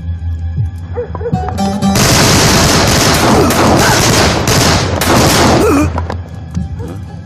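A heavy, sustained burst of gunfire from several guns at once starts about two seconds in and stops about six seconds in, over a low, droning music score.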